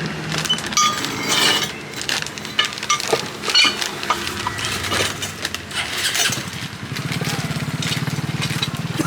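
Scattered metallic clinks and knocks, then from about seven seconds in a small motor running steadily with a fast, even pulse.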